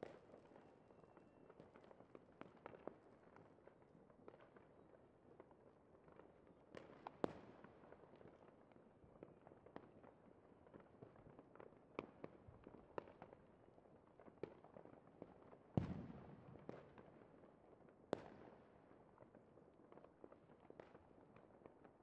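Fireworks display: faint, irregular cracks and pops. Louder bangs come about seven seconds in and near sixteen seconds in, the second followed by a low rumble.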